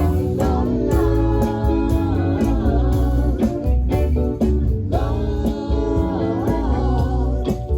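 A band playing a blues-flavoured song with guitar and singing over a steady beat.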